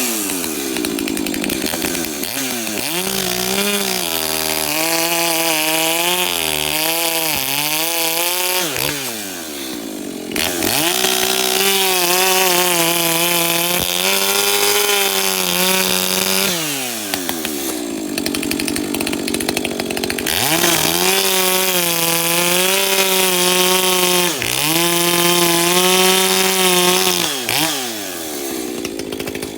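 Modified Shindaiwa 591 two-stroke chainsaw cutting through wood: the engine holds a lower, wavering pitch under load in each cut, and between cuts it revs up high and drops back, about three cuts in all.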